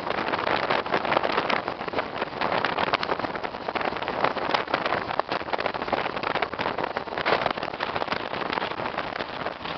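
Wind rushing over the microphone of a camera held out of a moving vehicle, mixed with the vehicle's road and tyre noise: a steady, crackly rush.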